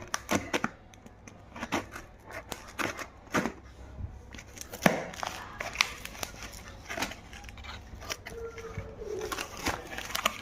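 Product packaging being handled and torn open, with scattered crinkling, rustling and sharp clicks throughout.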